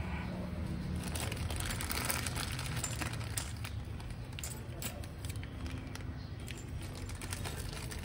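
Clear plastic parts bag crinkling and rustling as it is handled, with small scattered clicks.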